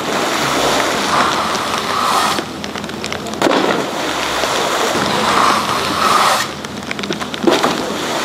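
Riders splashing down one after another into a water-jump pool, a heavy splash about every four seconds (three in all), over a steady rushing hiss of churned water.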